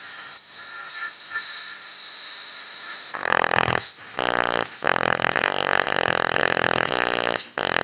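Loudspeaker with a torn cone surround playing, going into a loud rasping, flapping buzz from about three seconds in, broken by a few short gaps. The torn surround makes the speaker knock.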